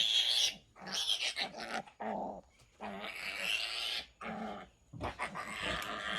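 Newborn piglet screaming in a string of shrill squeals, each about half a second to a second long with short breaks between, as it is held to have its tail docked.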